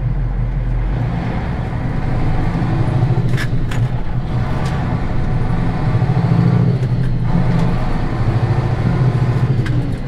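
Ford 8000 truck engine heard from inside the cab, pulling away from a stop and working up through the low gears of its 13-speed manual transmission. The engine note climbs, then drops about seven seconds in and again near the end as gears are changed, with a couple of knocks around four seconds in.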